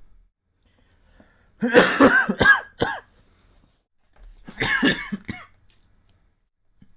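A person coughing in two fits: a run of several quick coughs about two seconds in, then another burst of coughs around five seconds in.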